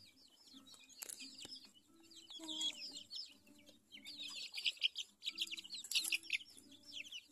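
A flock of young chicks peeping while they feed: many rapid, high, falling peeps, growing thicker about four seconds in, with softer low clucking underneath.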